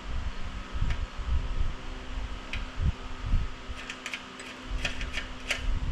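Hands fitting a motorcycle backrest receiver bracket: dull bumps of handling and a run of light metal clicks and taps near the end, over a steady hum.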